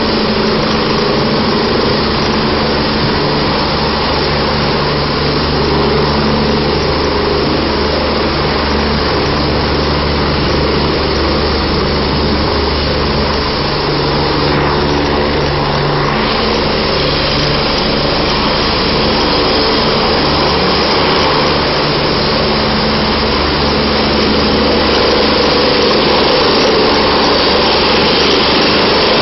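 Medical helicopters running on a rooftop helipad: a loud, steady turbine whine with rotor noise and a low hum. It grows slightly louder toward the end as a helicopter lifts into a hover just above the roof.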